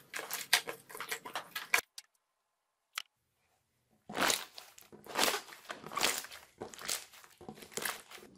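Slime being kneaded, folded and squeezed by hand, giving a quick run of crackles, pops and squelches as air pockets burst. The sound breaks off for about two seconds in the middle, with a single click in the gap, then starts again with a new batch of slime.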